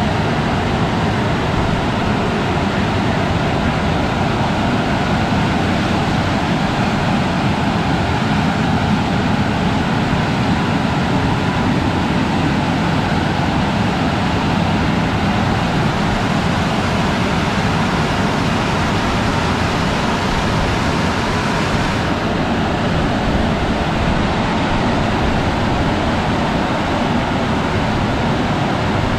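Aquarama Stargate S10 rollover car wash gantry running: a loud, steady rushing noise, its hiss dropping back a little about two-thirds of the way through.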